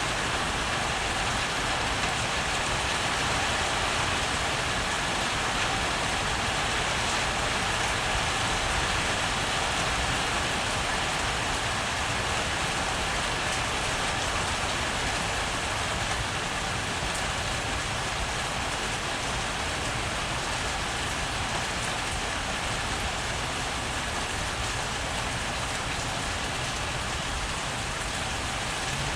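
Heavy rain pouring steadily during a thunderstorm, an even hiss of rain on surfaces that eases slightly over the second half.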